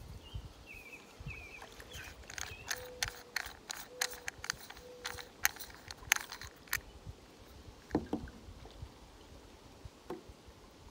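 Plastic scuba mouthpiece and its rubber parts being handled: a quick run of sharp clicks and ticks, then a couple of soft knocks. A few faint short whistle-like notes sound over it.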